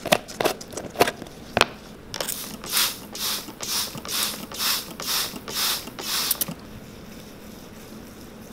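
Sharp clicks as the plastic lid of a tin of Saphir saddle soap is twisted open, then about nine rhythmic swishing strokes as a bristle brush is scrubbed across the soap to load it with lather.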